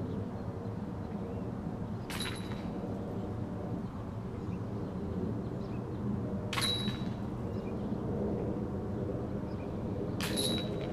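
Three disc golf putts striking the chains of a metal basket, each a sharp metallic clank with a short ring, about four seconds apart. A steady low engine drone runs underneath.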